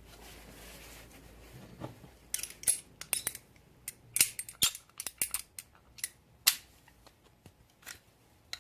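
Irregular sharp metallic clicks and light scrapes, starting about two seconds in, from a copper pipe and fitting being pushed together and handled.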